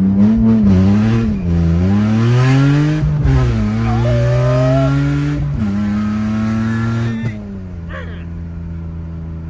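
BMW E46 engine accelerating hard from a launch, the revs climbing and falling back sharply at each gear change, about one and a half and three seconds in and again around five and a half. About seven seconds in it eases off to steady, quieter running.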